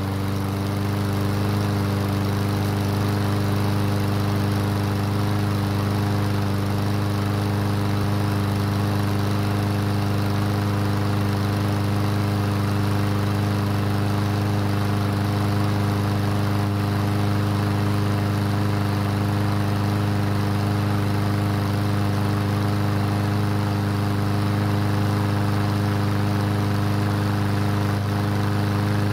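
Briggs & Stratton overhead-valve ReadyStart lawn mower engine running steadily at an unchanging speed, having started after its carburettor was cleaned following winter storage.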